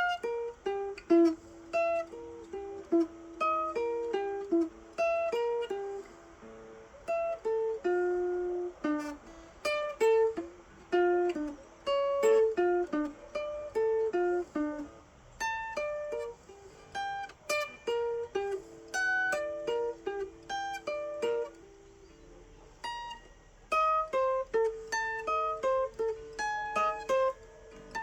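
A guitar played solo, plucking a melody of single notes with some notes let ring, pausing briefly a couple of times.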